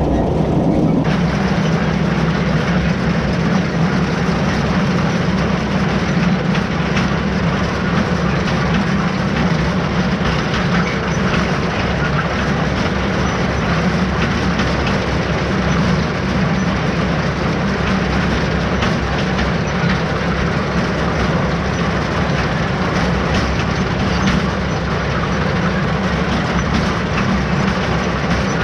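Haybine mower-conditioner and the tractor pulling it running steadily under load while mowing hay, a continuous heavy mechanical din with a strong low hum and a dense rattle and hiss above it.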